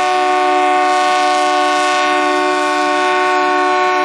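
Diesel locomotive's air horn sounding one long, steady blast, several notes at once forming a chord.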